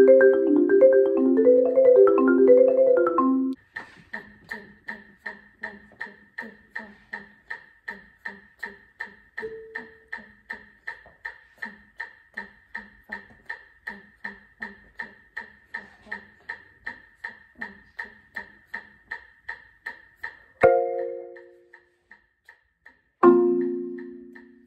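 Marimba played with yarn mallets: a fast run of notes that stops about three and a half seconds in, then a metronome ticking steadily at just under three clicks a second, with two loud chords struck and left to ring near the end.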